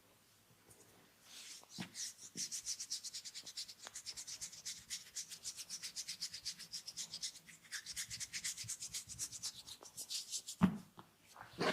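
Massage strokes: hands rubbing or scratching fast and rhythmically over skin or hair, several strokes a second. Near the end comes a single loud, sharp smack.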